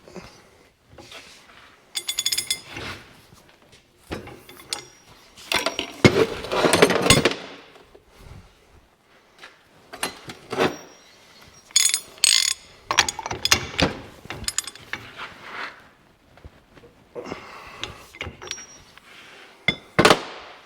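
Ratchet wrench clicking in short bursts while a lock nut is tightened down, with metal clinks between strokes.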